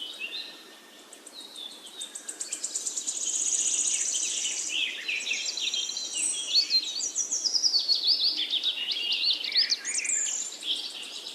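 Several birds chirping and singing at once, with quick rising and falling notes and fast high trills.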